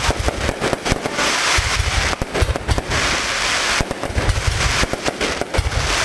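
Aerial fireworks display going off: a dense, rapid run of sharp cracks and crackle over repeated deep booms of shells bursting, overlapping without pause.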